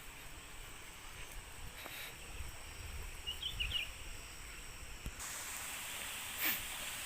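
Rural outdoor ambience while walking: low rumble of movement, a few short bird chirps about three seconds in, and a steady hiss that grows louder about five seconds in, with a single sharp click near the end.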